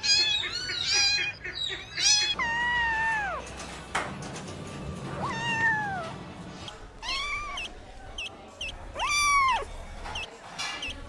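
Kittens meowing over and over. A quick run of short high meows is followed by several longer, drawn-out meows that fall in pitch at the end, with small chirp-like mews in between near the end.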